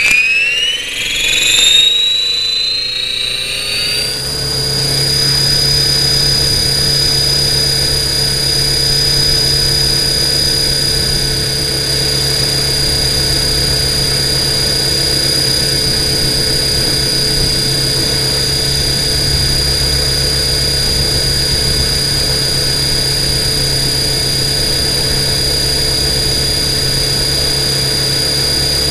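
Electric motors and propellers of a radio-controlled copter, heard close through its onboard camera. A whine rises in pitch over the first few seconds, then settles into a steady, even hum with a high whine.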